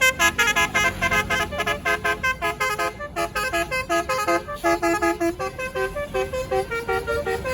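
Tour bus's basuri-type telolet horn playing a fast melody of short, high notes, several a second, with a few longer held notes about halfway through. A low rumble runs beneath it.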